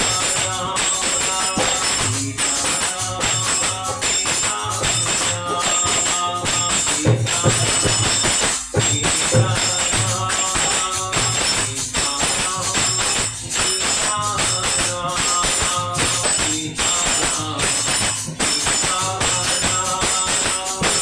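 Instrumental passage of Hindu devotional music, with held melodic tones over a steady, repeating drum beat and continuous jingling percussion.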